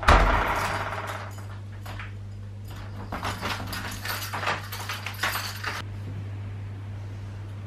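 A door shuts with a loud thud at the start, followed by a few seconds of keys jangling and clicking, rustling handling noises over a steady low hum.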